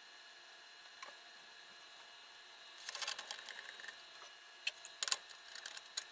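CNC-converted mini milling machine cutting, with a steady high whine and bursts of irregular clicking and ticking about three seconds in and again in the last second and a half.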